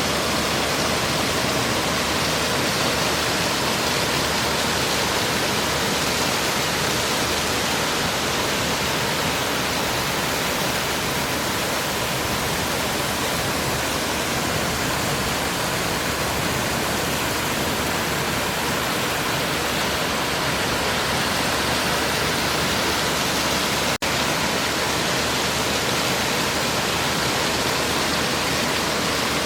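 River water falling and flowing over stones: a steady, even rush and gurgle of a clear mountain stream, with one split-second break about three-quarters of the way through.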